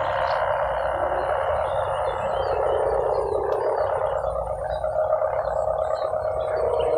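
Sendaren (kite hummer) of the 'mesin brujul' type on a large winged kite, buzzing in the wind as a steady, rattling drone. Its pitch sinks a little mid-way and rises again near the end as the wind on the kite changes.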